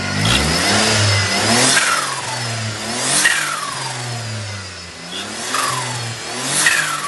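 Turbocharged Perodua Viva engine revved in repeated blips, about four times. On each throttle lift a high turbo whistle falls away with a fluttering chatter: compressor surge flutter from the upgraded turbo.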